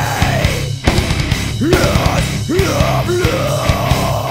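Heavy metal music with a dense, steady beat and a vocal line that slides up and down in pitch in long arcs.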